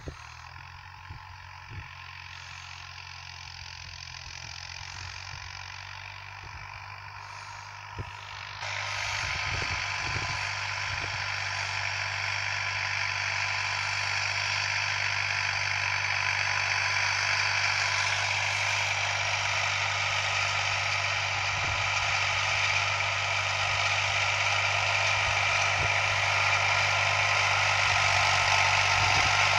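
A Fiat 480 tractor's diesel engine running steadily under load while pulling a tillage implement through ploughed soil. A broad hiss over the engine's low drone steps up suddenly about nine seconds in and grows louder toward the end.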